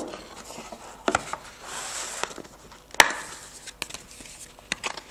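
A cardboard phone box being unpacked by hand: the lid comes off and a cardboard insert is lifted out, with cardboard rubbing and sliding and a few sharp taps, the sharpest about three seconds in.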